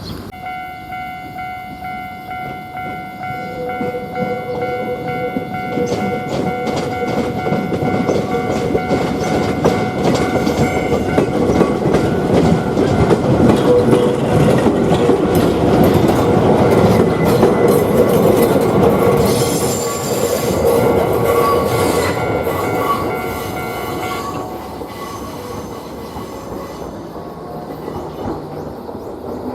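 Japanese level-crossing bell sounding its rhythmic electronic clang from just after the start until it cuts off about 24 seconds in. Meanwhile an Ichibata Electric Railway train approaches and passes with wheel rumble, growing louder to a peak around the middle and then fading away.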